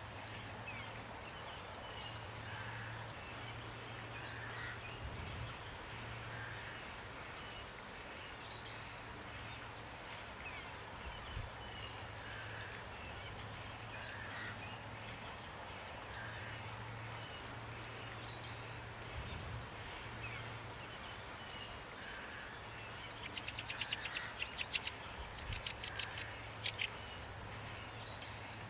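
Steady rain with songbirds calling: short, high, falling phrases repeat throughout, and a fast rattling trill comes near the end, over a low steady hum.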